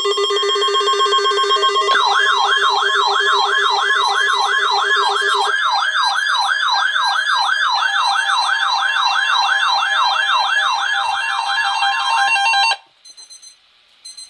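Weather alert radio alarms sounding together for the National Weather Service weekly test of the alarm tone. Several steady tones are joined about two seconds in by a fast rising-and-falling siren warble, about two and a half cycles a second. All of it cuts off suddenly near the end.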